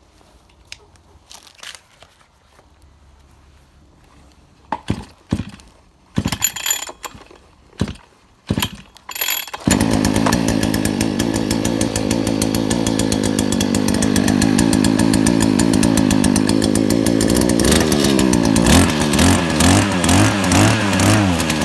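Mitsubishi TLE48 two-stroke brush cutter engine being pull-started: a few short bursts from the recoil-start pulls, then it catches about ten seconds in and runs steadily. Near the end it is revved up and down several times.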